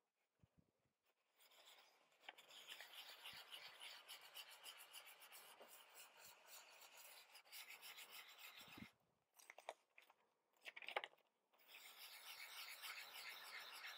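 Sandpaper scrubbing in quick back-and-forth strokes on glossy magazine paper, distressing the printed surface. It stops for a few seconds past the middle, where the paper sheet is handled with a few short rustles, then the scrubbing starts again near the end.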